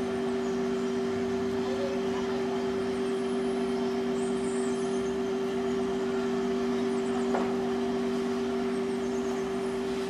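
Engine of a large crawler crane running at a constant speed, a steady unchanging hum. A single sharp click about seven seconds in.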